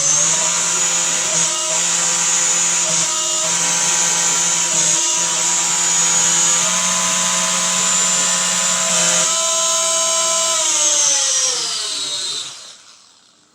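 Electric motor and propeller of a LEAMBE P-51 Mustang RC plane spinning up suddenly to a loud, steady high whine, then dropping in pitch and winding down near the end as the throttle is cut.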